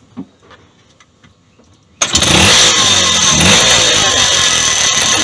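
Two-stroke, three-port three-wheeler engine running loudly after a new pickup coil has been fitted. It cuts in suddenly about two seconds in, after a stretch of near quiet with a few small handling clicks.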